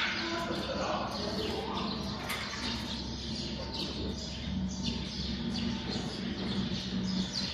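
Irregular light clicks and taps of workstation frame parts and shelf brackets being handled and fitted during assembly, over a steady low hum.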